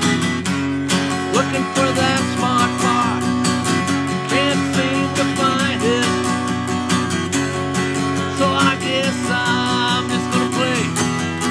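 Steel-string acoustic guitar strummed in a steady rhythm, with a man's voice singing along over it.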